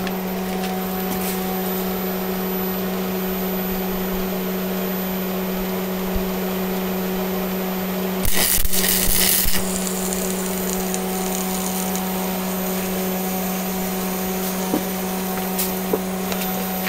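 Arc welder humming steadily. About eight seconds in, the welding arc crackles loudly for about a second and a half as a tack weld joins a stainless steel flange plate to the mower motor's pulley.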